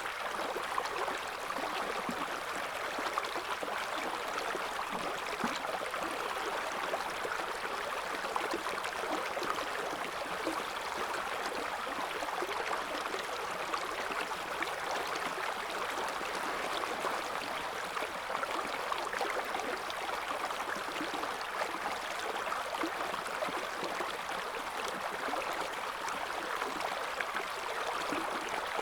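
River water flowing and babbling over stones: a steady rush of current with fine gurgling detail and no breaks.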